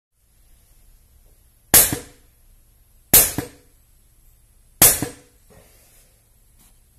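Tokyo Marui VSR-10 airsoft sniper rifle with a Wolverine bolt, firing 0.43 g BBs at 2.8 joules with no suppressor: three sharp shots, about a second and a half apart, each with a short tail.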